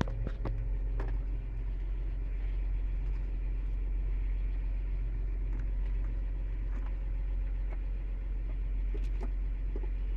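Vehicle engine running steadily with a low drone, heard from inside the cab, with a few light clicks.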